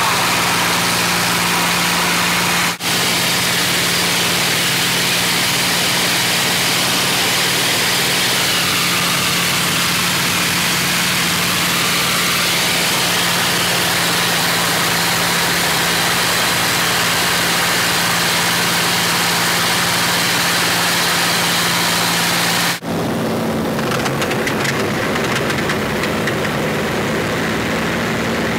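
P-51D Mustang's Packard Merlin V-12 engine running steadily in flight, heard inside the cockpit together with rushing air noise. The sound drops out for an instant twice, about 3 seconds in and near the end; after the second break the engine note is slightly higher and a little quieter.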